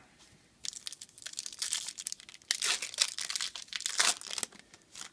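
Foil wrapper of a Bowman Chrome baseball card pack crinkling as it is handled and torn open. A dense run of crackling starts a little under a second in and lasts about four seconds, loudest in its second half.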